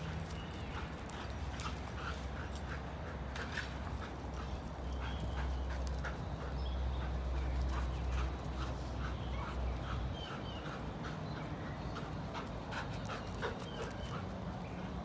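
Dogs barking and whining in short, irregular calls, over a low steady hum.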